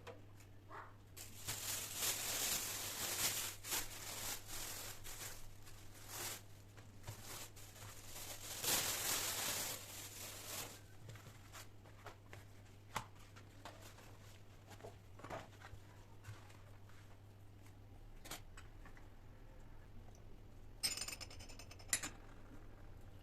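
Hands preparing food: a long stretch of rustling with light clicks and taps through the first half, then scattered soft taps, and a short rustling burst near the end.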